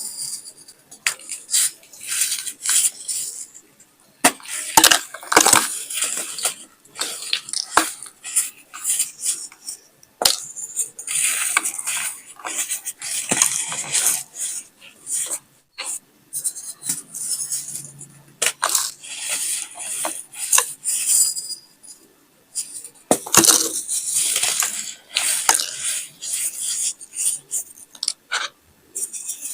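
Baking soda being crushed and crumbled, a gritty crunching and crackling that comes in irregular bursts with short pauses between them.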